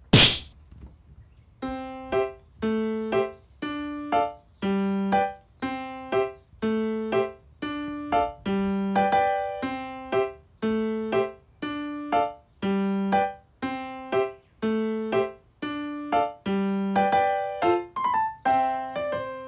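Light background music on a keyboard with a piano-like sound: a simple tune of evenly spaced notes, about two a second, starting a couple of seconds in. Just before the tune, at the very start, there is one sharp knock, the loudest sound here.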